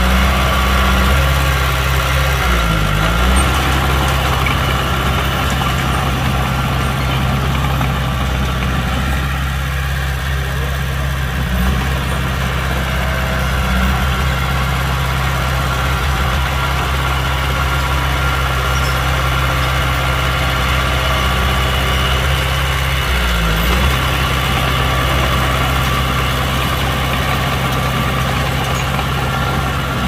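Heavy earthmoving machine's diesel engine running steadily close by. Its pitch dips briefly and comes back up twice, about 3 seconds in and again about 23 seconds in.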